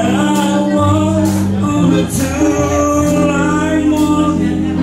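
A pop song with sung vocals held over a steady beat and sustained low chords.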